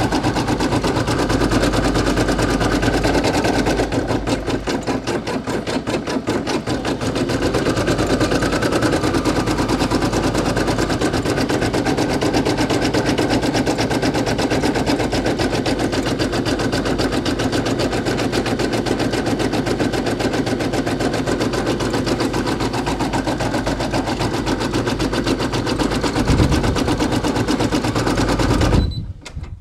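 Brother PE800 embroidery machine stitching at a fast, steady rhythm, its needle clattering as it goes. It stops suddenly near the end, because the bobbin thread has run out.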